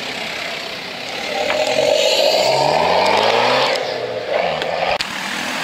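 A car accelerating hard away from a standstill, its engine rising in pitch through the revs. About three and a half seconds in the driver lifts off, and the engine note drops away, followed by a few sharp clicks.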